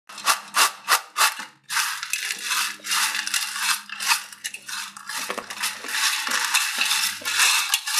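Crisp fried taro root stick chips rattling and rustling. It opens with four sharp shakes of the chips in a glass bowl, then comes continuous crackling as a hand stirs them in a steel plate.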